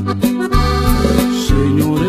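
Instrumental introduction of a corrido: an accordion melody over a bass line that alternates low notes, with evenly spaced percussion hits keeping the beat.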